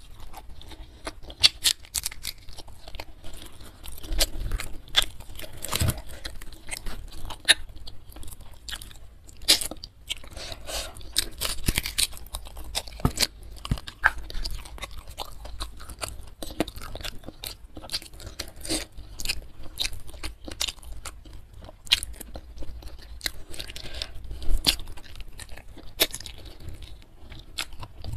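Close-up chewing of crispy fried carp and rice, with a steady run of short, sharp crunches and mouth clicks.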